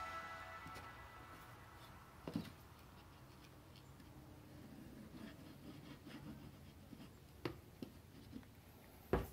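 Quiet handling of a wooden workpiece and a plastic glue bottle: a few light clicks and taps with faint rubbing in between, the sharpest click near the end, over low room tone.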